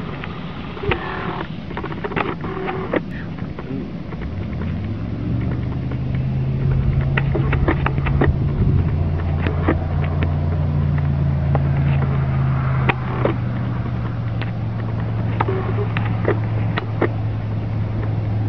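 A motor running steadily: a low hum that sets in about four seconds in and is loudest through the middle, with scattered light clicks and rustles.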